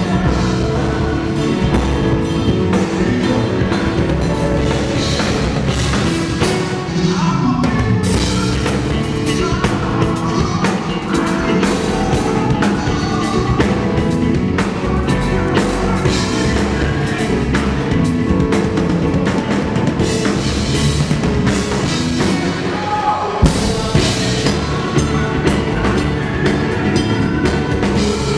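Music with a drum kit playing, loud and continuous, with a brief drop just over three-quarters of the way through before it carries on.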